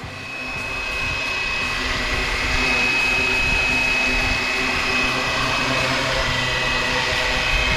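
Flywing BO 105 450-size electric RC helicopter in flight: steady high whine of the brushless motor and drivetrain over the rush of the main and tail rotors, growing louder over the first couple of seconds and then holding.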